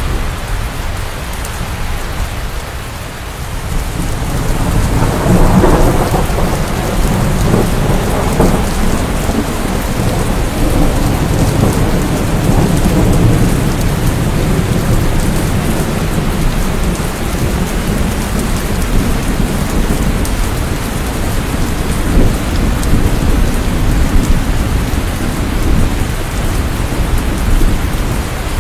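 Steady rain falling during a thunderstorm, with a low rumble of thunder swelling about five seconds in and rolling on for several seconds.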